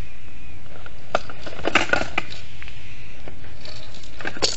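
Knob of a handmade cardboard capsule-toy machine being turned, so that the clear plastic capsules inside rattle and knock against the cardboard. There is a cluster of clicks and knocks about a second in and another near the end.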